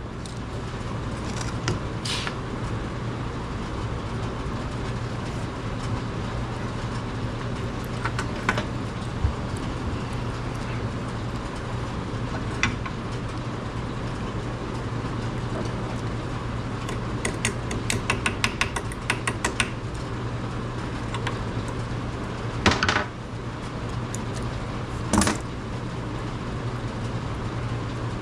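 Workbench handling of pliers and small steel knife parts: scattered light metallic clicks, a quick run of ticks about two-thirds of the way through, and two louder clanks near the end, over a steady low hum and rush.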